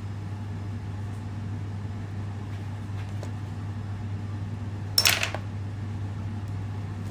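Steady low machine hum, with one short, sharp clatter about five seconds in.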